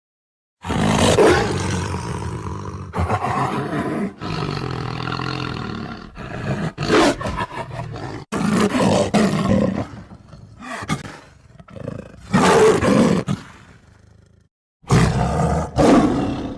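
Tiger roaring repeatedly, a run of loud, rough roars, with a short dead silence near the start and another about two seconds before the end.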